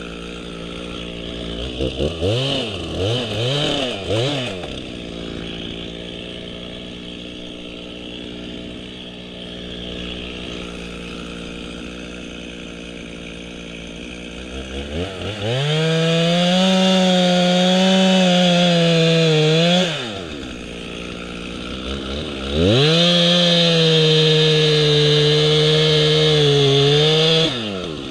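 Two-stroke chainsaw idling, blipped up a few times about two seconds in, then run at full throttle twice for about four to five seconds each. It is cutting into oak, and its pitch sags slightly and wavers under the load.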